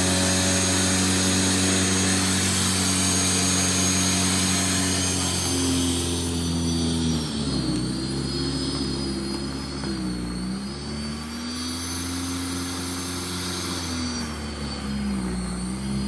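AlphaWorks 18-inch corded electric snow thrower running, a steady motor whine with a high tone above it. From about six seconds in, the pitch dips and recovers several times as the motor is loaded by the snow it is clearing.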